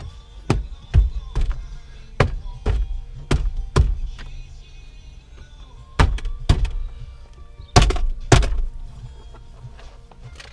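About a dozen sharp thunks and knocks in two clusters, the loudest near the end, from a car's interior door trim panel being knocked and pressed back onto its clips. Background music plays throughout.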